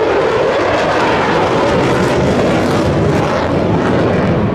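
F-16 fighter jet's engine in flight: a loud, steady rush of jet noise.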